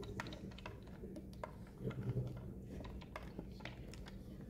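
Pegged chess pieces on a wooden tactile chessboard clicking and tapping as hands feel over them and fit them into the board's holes: a scatter of light, irregular clicks.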